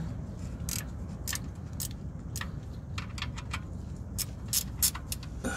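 A run of sharp metallic clicks, spaced unevenly and briefly coming in quick succession a little past halfway, as the oil pan drain plug is tightened back in. A low steady rumble runs beneath.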